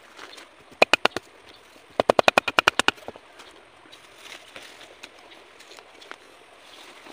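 Two rapid runs of sharp knocks or clicks: about four or five about a second in, then about a dozen at roughly twelve a second between two and three seconds in.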